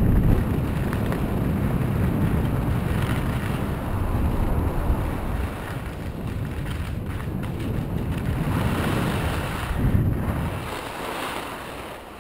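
Wind buffeting a ski-mounted or helmet-mounted camera microphone at speed, a steady low rumble, with the skis hissing and scraping over packed, chopped-up snow. It eases off near the end as the skier slows.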